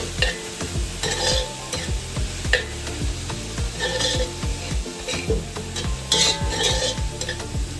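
Chopped vegetables (sweet peppers, carrots, celery, pimento and garlic) sizzling in hot oil in a pot while being stirred, with a spoon scraping the pot a few times.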